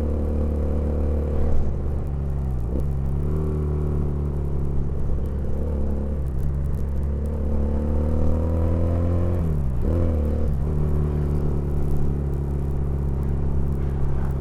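Custom 320 cc inline two-cylinder motorcycle engine, built by joining two Honda GL Pro engines, running steadily. Its pitch dips sharply and recovers about three times, and near the end it climbs slowly before dropping suddenly.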